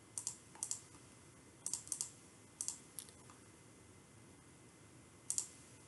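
Computer mouse button clicking: several quick pairs of short clicks in the first three seconds, then one more pair near the end.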